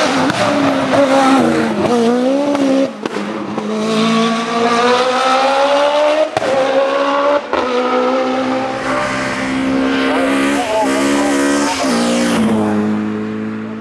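Racing car engine at full throttle, its pitch climbing and then dropping sharply at each upshift, about three, six and seven and a half seconds in. Near the end the revs waver up and down as the car slows.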